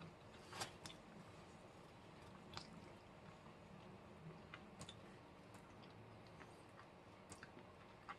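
Faint chewing of chicken wings, with a few scattered soft, wet mouth clicks.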